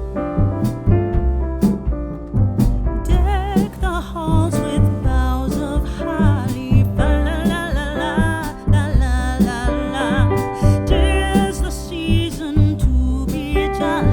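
Background music with piano and a deep bass line. A melody with strong vibrato, most like a singing voice, joins about three seconds in.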